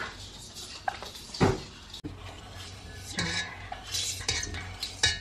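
A metal utensil clinking, knocking and scraping in a stainless steel mixing bowl as butter filling is stirred by hand. There is a series of sharp clinks, and the loudest is a single knock about one and a half seconds in.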